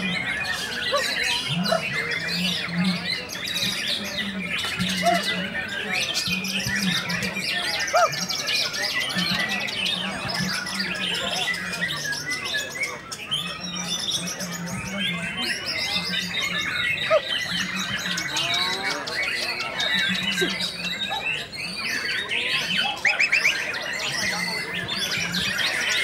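Many caged songbirds singing at once, white-rumped shamas among them: a dense chorus of overlapping whistles, chirps and rapid trills with no pause.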